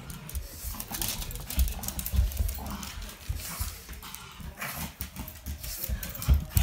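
A small pug-like pet dog romping around the room: irregular scuffs, knocks and low thumps as it scrambles over the floor, with short dog noises mixed in.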